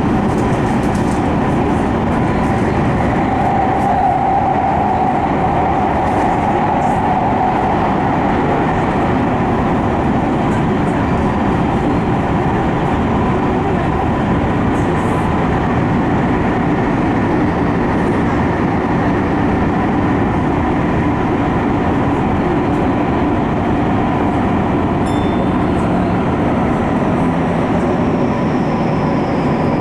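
Tokyu 5050 series 4000 electric train running steadily through a subway tunnel, heard from inside the lead car: a continuous loud rumble of wheels on rail with a faint steady hum from the motors.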